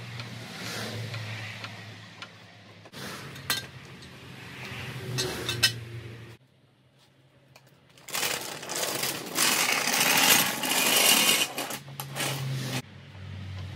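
Hand and power tools at work on a car engine during removal, in short edited snatches: sharp metallic clicks and clinks of tools and fasteners, then a louder stretch of fast mechanical rattling in the second half that cuts off suddenly.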